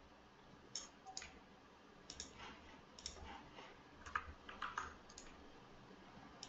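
Faint, irregular clicking of a computer mouse and keyboard: about a dozen short clicks, some in quick pairs, with the busiest stretch around the middle.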